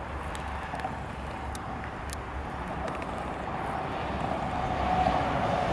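Stadler FLIRT3 electric multiple unit approaching on the line, its running noise growing steadily louder, with a steady whine that strengthens near the end.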